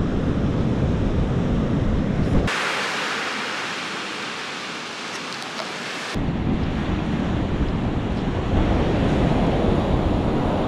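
Wind buffeting the microphone over the hiss of breaking surf. A few seconds in, the wind rumble drops away abruptly, leaving only the wash of waves on the sand, and about six seconds in the wind buffeting comes back.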